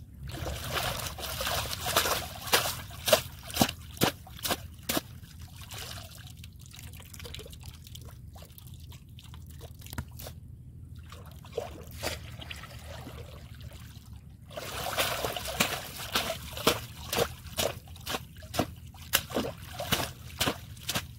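Muddy paddy-field water splashing and sloshing as someone wades through it and pushes a woven bamboo fish trap through the shallows. The splashes come quickly in two bouts, one near the start and one from about two-thirds of the way in, with a quieter stretch of trickling and dripping between.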